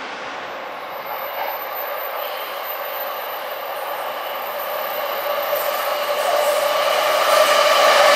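Electric commuter train approaching on the track, its running noise growing steadily louder, with a steady whine over it.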